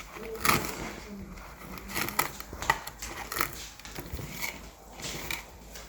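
Irregular clicks, snips and rustling from hands and a tool working at a vacuum cleaner's motorhead brush roll, clearing wound-up hair off it.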